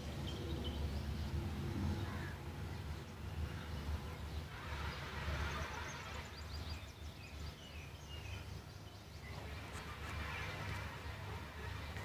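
Faint background noise: a steady low hum with a light hiss, and a few faint short high chirps about halfway through.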